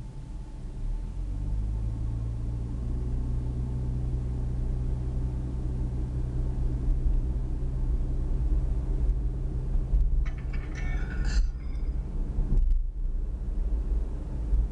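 Car engine and road noise from inside a moving car: a steady low rumble with an engine hum. A brief higher-pitched sound comes through about ten seconds in.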